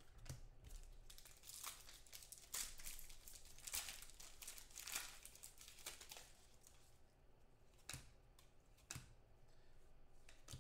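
Trading-card pack wrapper crinkling and tearing open, faint and in short bursts, with a couple of sharper ticks near the end.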